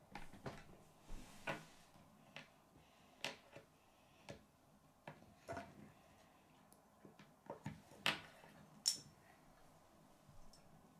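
Chunky plastic K'nex Kids pieces clicking and knocking as they are fitted together and handled on a wooden tabletop: about a dozen scattered light clicks, the sharpest two close together about three-quarters of the way through.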